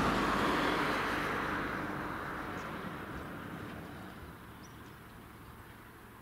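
Jet engine noise from an Airbus A320 airliner on the runway, a broad rushing sound that fades steadily away over the first few seconds to a low background.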